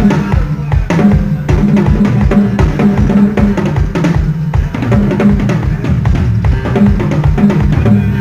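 Drum kit played over a PA during a band sound check: a steady bass drum beat with snare hits over a sustained low bass note.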